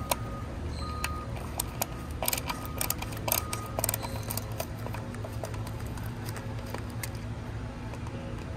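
Sharp clicks and taps of a screwdriver and plastic wire holders being worked inside a motorcycle headlight housing, with a quick run of clicks about two to four seconds in, over a steady low hum.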